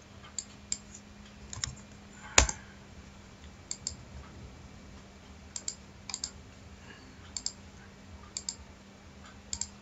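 Computer mouse clicks and a few key presses, the clicks often coming in quick pairs like double-clicks, with one much louder knock about two and a half seconds in. A faint steady hum runs underneath.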